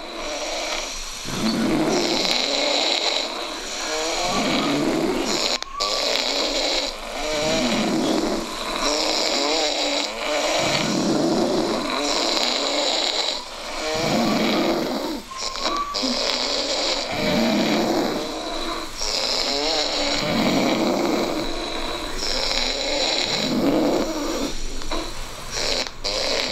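Steady, loud snoring, one breath about every two and a half seconds. Each breath brings a low snore and then a hissing breath.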